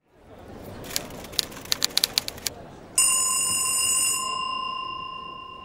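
About a dozen sharp, irregular clicks over a hiss, then a small bell struck once about three seconds in, its clear ringing tone fading slowly.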